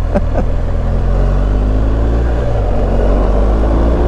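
BMW R1250 GS Adventure's 1254 cc boxer-twin engine running under way as the bike accelerates, its note rising in pitch in the second half.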